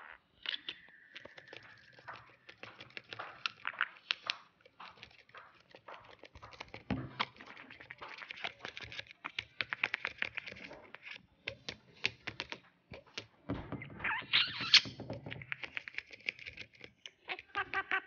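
A budgie pecking and nibbling at a MacBook Air's keys, making many small irregular key clicks, while it chatters softly in chirps and warbles.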